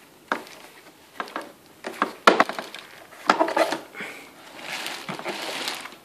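Hard plastic clicks and knocks as the body and rear filter grille of a Philips PowerPro Compact FC9323 vacuum cleaner are handled and turned over, at irregular intervals, the loudest a little past two seconds in. A softer stretch of rustling, from the plastic wrapping, comes past the middle.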